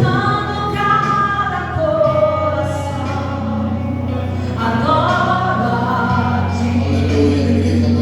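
Vocal group singing a gospel worship song, with long held notes over a steady low accompaniment.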